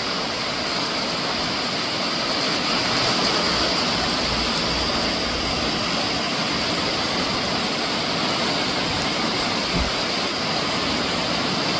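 Heavy downpour of wind-driven rain: a dense, steady hiss of rain falling in sheets.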